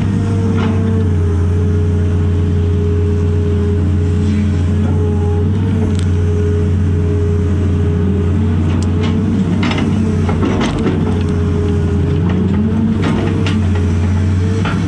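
Cat 330 excavator's diesel engine and hydraulics running steadily under load, heard from inside the cab, the note dipping and recovering twice as the boom and bucket work. A few sharp knocks and rattles in the second half.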